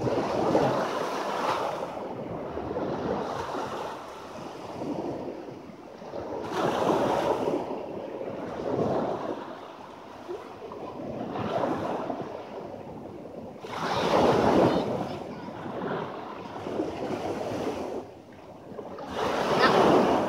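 Sea waves breaking and washing up on a sandy shore close by, each surge swelling and fading every few seconds.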